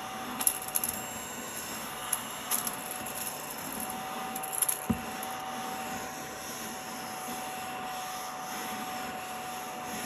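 Small battery-powered mini vacuum of an electric pencil sharpener running steadily with a thin whine, sucking up pencil shavings from a tabletop; the shavings click and tick as they are pulled in during the first five seconds, with a single knock about five seconds in.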